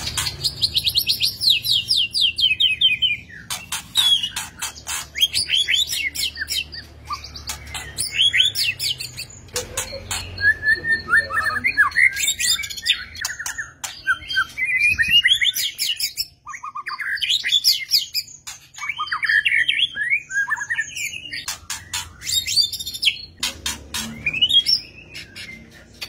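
White-rumped shama singing: a long, loud run of rapid, ever-changing phrases of trills, sweeping whistles and sharp clicks, broken by a few short pauses.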